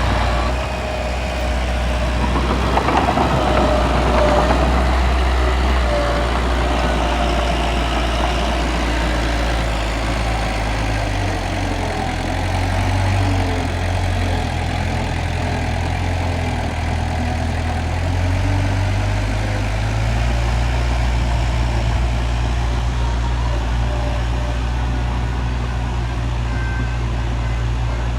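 Heavy diesel earthmoving machinery running steadily, with the engine pitch shifting slightly as it works.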